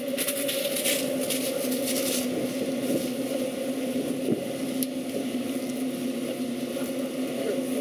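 Farm tractor engine running steadily at a low, even hum. A crackling rustle sounds over it for the first couple of seconds.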